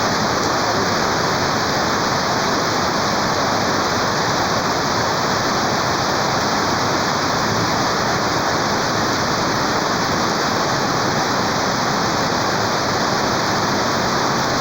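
Heavy rainstorm downpour with rushing runoff water: a steady, unbroken hiss.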